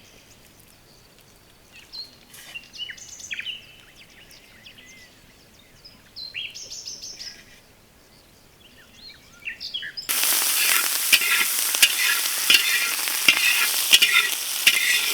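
Birds chirping now and then over a quiet background, then about ten seconds in a sudden loud sizzling of food frying in hot oil in a pan, with stirring scrapes.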